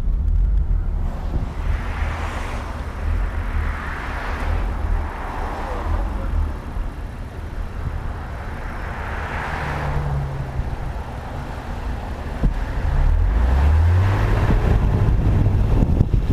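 BMW E36 325is driving, with a low rumble from the drivetrain under road noise. The car is getting louder and the engine note rises about 13 seconds in. The noise is blamed on a broken differential bolt letting the driveline rub underneath the car.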